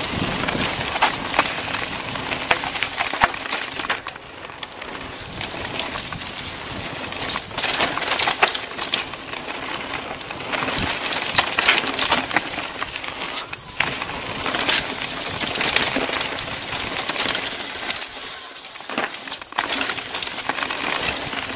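CTM Ridge Xpert mountain bike running fast down a dirt trail: a steady rush of tyre and wind noise with constant clicking and rattling as the bike jolts over the ground. It briefly goes quieter about four seconds in.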